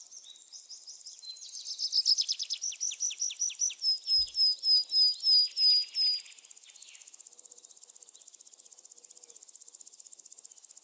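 A songbird singing one song phrase: a run of high notes that speeds into a fast trill, then slows into several clear downslurred notes and stops about six seconds in. A faint steady high hiss continues underneath.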